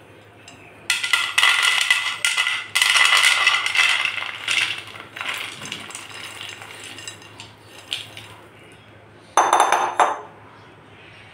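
Crisp, freshly fried jhal nimki (diamond-shaped fried flour crackers) poured from a bowl onto a plate, clattering and rattling against each other; the dry clatter shows how crunchy they have fried. A long pour starts about a second in and tapers off over several seconds, then a short second pour comes near the end.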